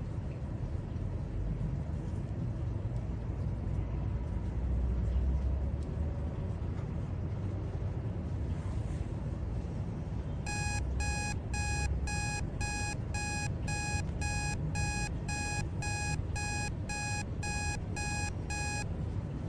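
Electronic timer alarm beeping rapidly, about two short beeps a second for some eight seconds starting about halfway through, marking the end of a 25-minute pomodoro study period. A steady low rumble sits under it.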